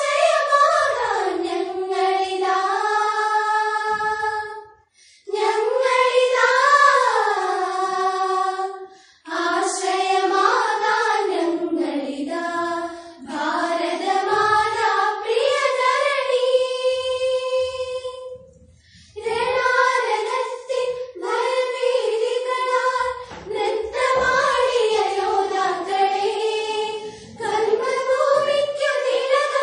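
A group of schoolgirls singing a patriotic song together, one melody line with held notes that slide up and down, broken by short pauses between phrases.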